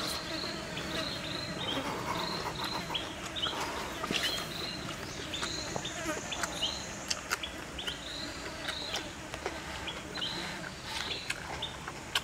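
Forest ambience: short high chirps, each dropping at the end, repeating irregularly about once or twice a second over a steady background hiss. Scattered sharp clicks are heard throughout.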